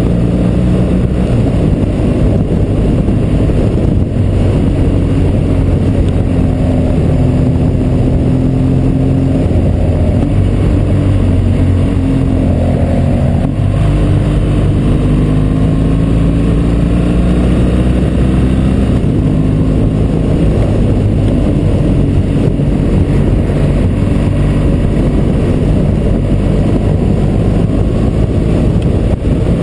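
BMW motorcycle engine running at road speed, its pitch holding steady for a few seconds at a time and shifting up and down with throttle and gear changes, under a constant rush of wind and road noise.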